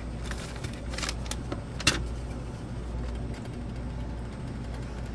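Wooden spoon stirring rice and beef broth in a cast iron pan, with a few sharp knocks, the loudest a little under two seconds in, over a steady low hum.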